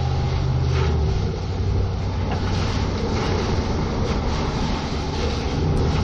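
Tyre and road noise with a low vehicle rumble, picked up by a camera mounted under a Chevrolet Silverado 2500 pickup as it drives on wet pavement. A steady low drone fades about a second in, leaving an even rushing rumble.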